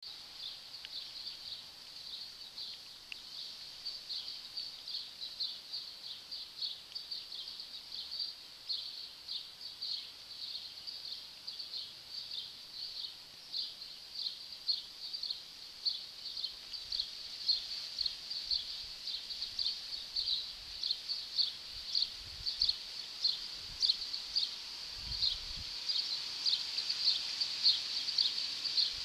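Short high chirps repeating steadily, about three a second, growing louder toward the end.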